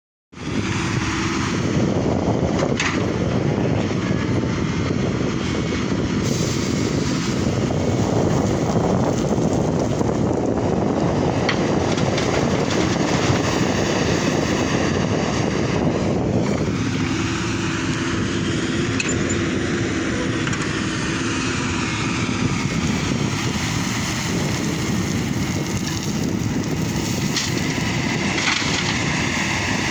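Hyundai 220LC crawler excavator working, its diesel engine and hydraulics running steadily. A heavy rushing noise covers the first half and eases a little past halfway, leaving a steady engine hum with occasional clicks.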